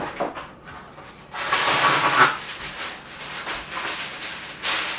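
Aluminum foil rustling and crinkling as it is handled, loudest in a burst about a second and a half in, with lighter crinkles after it and another rustle near the end.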